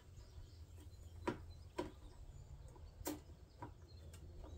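Faint, scattered clicks and light knocks of hand work on the genset's fuel lines and fittings, about five of them over a few seconds, over a low steady hum.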